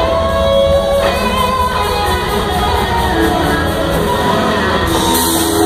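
Live blues-rock band playing: electric guitars with held lead notes over bass and drums, loud and unbroken.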